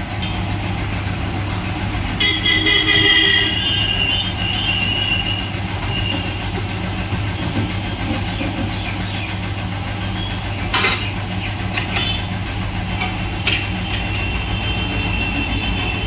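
Tyre-changer machine working a tubeless tyre onto an alloy car rim: a steady low hum, with the rubber bead squealing against the rim and mounting head for a few seconds near the start and again near the end, and a couple of sharp metallic clicks in between.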